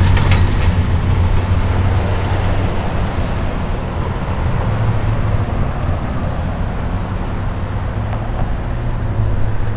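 Street traffic: a steady vehicle engine hum with road noise, dipping a little in the middle and swelling again near the end.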